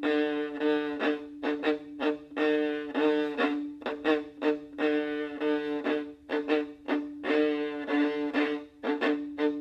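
Viola bowing the rhythmic figure of measures 146–147 over and over: many quick, short notes mostly on one repeated pitch, in a repeating rhythm.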